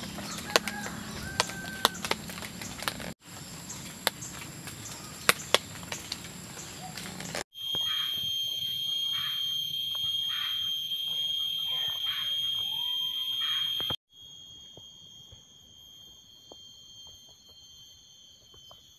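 Rain falling on a tarp, with many sharp drops striking it. After a cut about seven seconds in, tropical-forest insects drone steadily at a high pitch, with short calls beneath them. The drone continues more quietly near the end.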